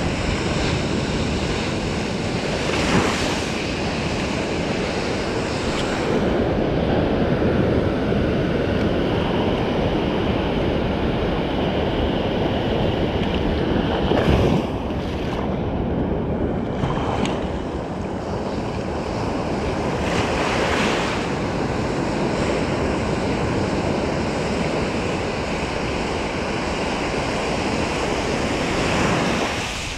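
Ocean surf breaking and washing up a sandy beach close by, with wind buffeting the microphone.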